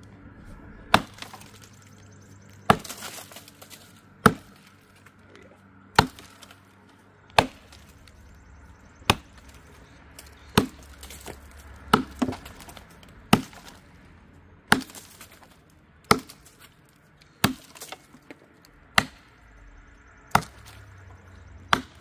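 A freshly sharpened vintage Stanley boy's axe chopping into a log: about fifteen sharp, evenly paced strikes, one every second and a half.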